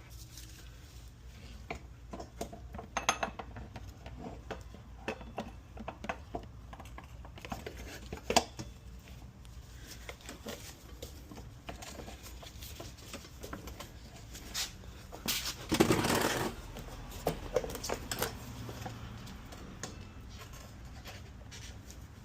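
Scattered metallic clinks and knocks of tools and parts being handled while a motorcycle front wheel and brake caliper are fitted, with one louder noisy burst lasting about a second, roughly two-thirds of the way in. A steady low hum runs underneath.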